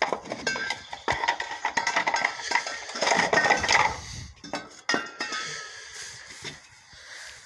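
Loose hard plastic parts removed from a car's engine bay being handled, clattering and clinking against one another in irregular bursts for about five seconds, then fewer knocks.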